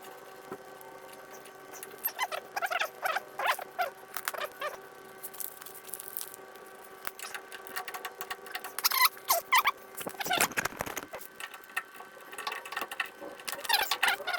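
Metal hardware on the Beetle's front torsion arms being worked with a wrench: clusters of short, high squeaks and chirps, with a duller clunk about ten seconds in.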